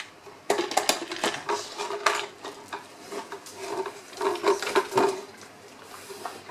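Homemade dog puzzle toy clattering and knocking as it is moved and handled, in several irregular bursts of hard, dish-like rattling.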